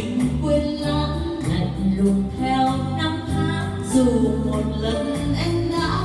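Two women singing a duet in Vietnamese through microphones, over amplified backing music with a steady beat and bass line.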